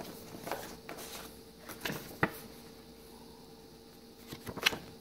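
Handling of a graphics-card box's packaging: scattered light rustles and clicks of cardboard, paper and plastic as a paper card is lifted out, with a sharp tap about two seconds in and a cluster of crinkles near the end, the loudest. A faint steady hum runs underneath.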